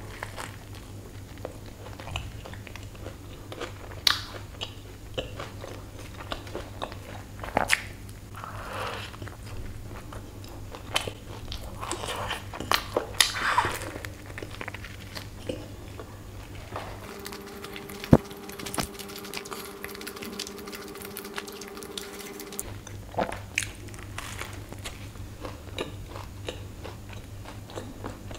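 Close-up mouth sounds of someone biting into and chewing a Burger King cheese meltdown burger: soft bites with scattered crunches and wet chewing. A steady low hum runs underneath and drops out for a few seconds midway.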